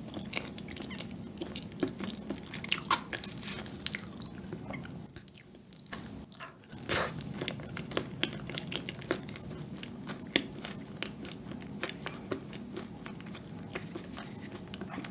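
Close-miked mouth sounds of chewing a thick, not fully thawed chocolate cup pudding: many small wet clicks and smacks, with one louder click about seven seconds in.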